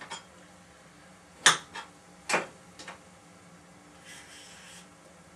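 Kitchen items being handled: about five sharp knocks and clicks over the first three seconds, then a short hiss about four seconds in, over a faint steady hum.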